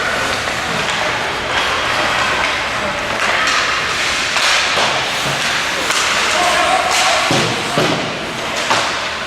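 Ice hockey game in an arena: a steady din of play and scattered voices, broken by several sharp knocks and thuds of puck, sticks and players against the boards.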